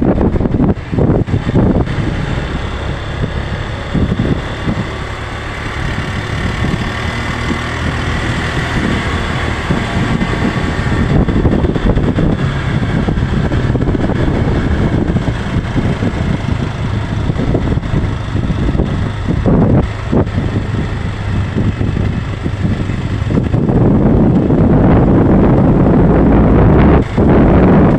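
Motorcycle engine running steadily while riding, with wind rushing over the microphone; it gets louder in the last few seconds.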